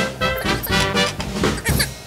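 Background music in a swing-jazz style with brass.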